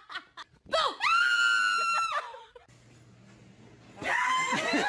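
A person's shrill, high-pitched scream about a second in, held for about a second and a half. Laughter follows near the end.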